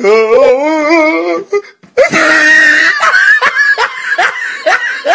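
High-pitched laughter: a wavering drawn-out giggle, a short shriek about two seconds in, then a string of quick falling 'ha' bursts.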